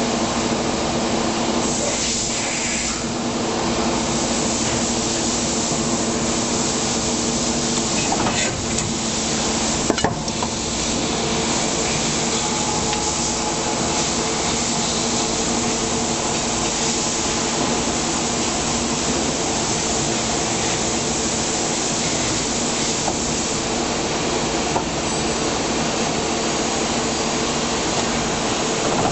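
Plastic injection molding machine running: a steady hum with a constant hiss over it, and two sharp clicks about eight and ten seconds in.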